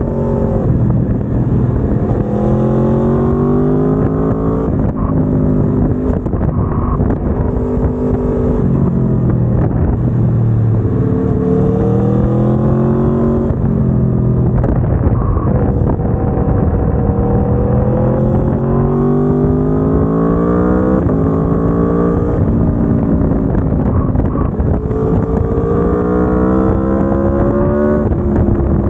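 Aprilia Tuono V4 1100 Factory's 65-degree V4 engine through its stock exhaust, pulling hard under acceleration. The pitch climbs for a few seconds and then drops sharply at each upshift, repeating through the gears.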